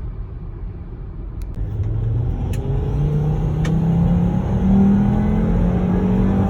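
2005 Volvo S60 T5's turbocharged five-cylinder engine accelerating under throttle. Its pitch climbs steadily from about two seconds in, then holds.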